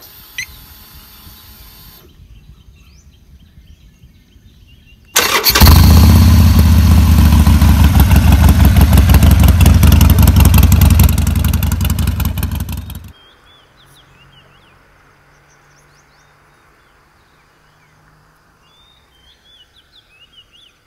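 Motorcycle engine starting about five seconds in and running loud with rapid, even exhaust pulses for about eight seconds, then cutting off. Faint bird chirps follow.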